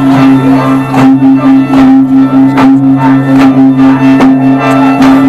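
Music: a steady held drone under a run of plucked string notes and light percussion.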